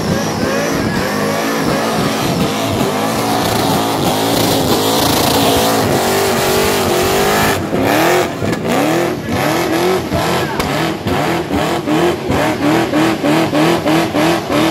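Monster truck engine running hard and steady, then from about halfway revved up and down in quick blips, roughly two a second.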